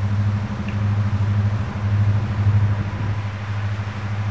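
A steady low engine drone whose loudness swells and dips slightly.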